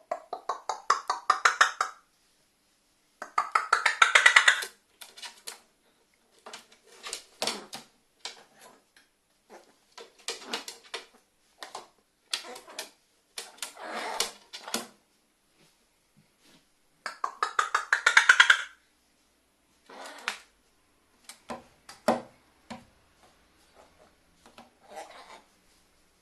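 Pet carrion crow making rattling calls. Each call is a run of rapid clicks, roughly a dozen a second, lasting about a second or two. Three long runs come at the start, about three seconds in and about seventeen seconds in, with shorter clicking calls scattered between them.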